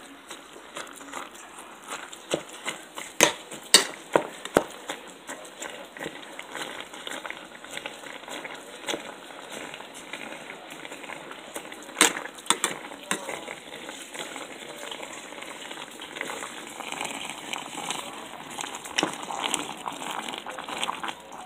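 Ground beef and onion frying in a stainless steel pot, a steady sizzle broken by a few sharp clinks and knocks, the loudest about halfway through.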